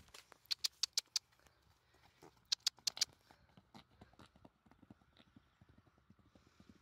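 A horse set loose trotting away across a wet, muddy pasture. Two short runs of sharp clicks come in the first three seconds, then softer hoofbeats fade as it moves off.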